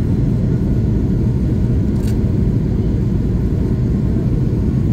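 Jet airliner rolling down the runway, heard from inside the cabin: a steady low rumble of engines and wheels. A faint click sounds about two seconds in.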